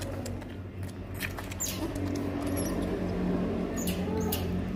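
Otter pup suckling from a milk bottle, giving short high squeaks and sucking clicks at irregular intervals.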